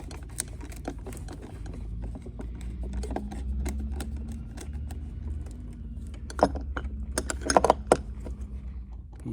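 Small metallic clicks and rattles of a screwdriver working the terminal screws and wires of a boat's shore power outlet, with bunches of louder clicks about six and a half seconds in and again around seven and a half seconds, over a low steady rumble.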